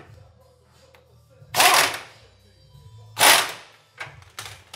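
Wrench tightening the nut on a Lincoln Navigator's rear tie rod: two loud, sharp metallic bursts about a second and a half apart, then a few lighter clicks near the end.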